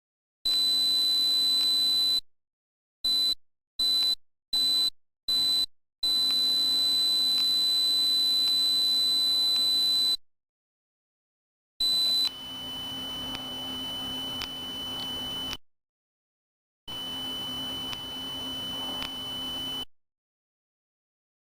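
A steady high-pitched electronic tone, switched on and off: a long tone, four short beeps, then another long tone, each separated by total silence. About halfway through, the tone drops a little lower in pitch, with a low hum beneath, and sounds twice more for about three seconds each, with a few faint clicks.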